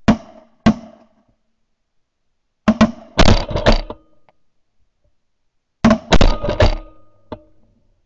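Shotgun blasts at ducks: two shots about two-thirds of a second apart, then two rapid volleys of several overlapping shots from more than one gun, about three seconds apart.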